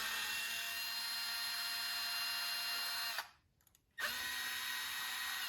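Small electric drill with a 2mm hex bit driving RC crawler screws, in two runs: one of about three seconds, then after a short pause another of about a second and a half. Each spins up quickly to a steady whine.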